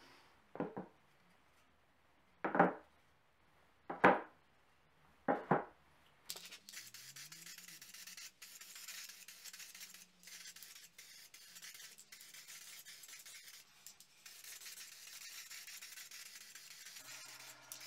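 Four plywood pieces knocked down one at a time into a cardboard box, then an aerosol spray-paint can hissing in long spurts with a few brief breaks.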